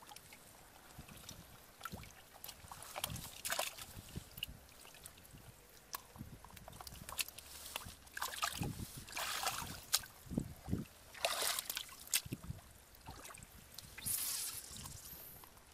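Hands sloshing and splashing in shallow muddy water while groping for fish, in irregular bursts with trickling drips between.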